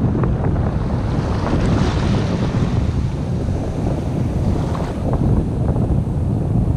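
Steady wind buffeting the microphone, with small waves washing over the shallows underneath.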